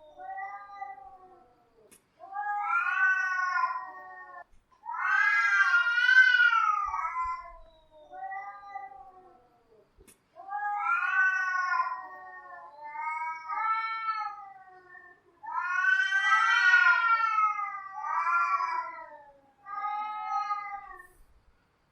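Cats yowling: a string of about nine long, wavering calls that rise and fall in pitch, each one to three seconds long with short pauses between. The loudest calls come about six seconds in and again about sixteen seconds in.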